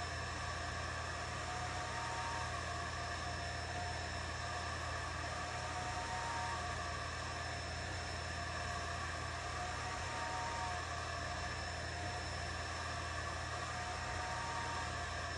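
Atomstack A10 Pro laser engraver running: a steady whir of its fans and motors, with a faint short whine coming back every few seconds as the head moves.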